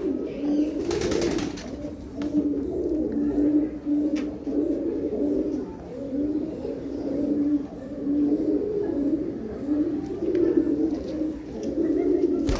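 Several pigeons cooing, their low coos repeating and overlapping without a break. A brief burst of noise comes about a second in.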